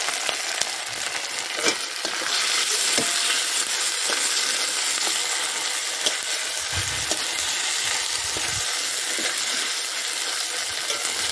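Chopped tomatoes and ground chilli, cumin and ginger paste sizzling steadily in hot mustard oil in a metal kadai: the masala being fried. A long flat steel spatula scrapes and stirs through it, adding scattered clicks.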